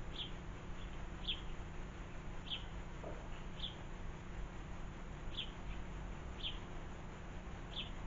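A small garden bird repeating a short, high call note about once a second, over a steady low background hum.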